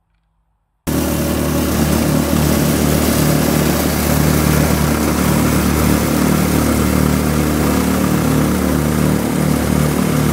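Near silence, then, about a second in, the small petrol engine of a vibratory plate compactor starts suddenly and runs steadily and loudly as the plate vibrates over loose sand.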